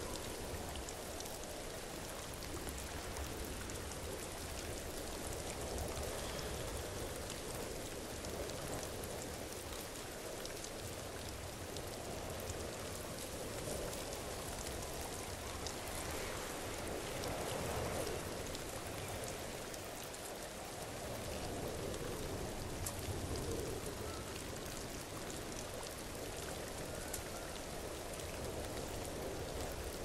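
Waterfall: a steady rush of falling water with a fine, rain-like patter of splashing drops.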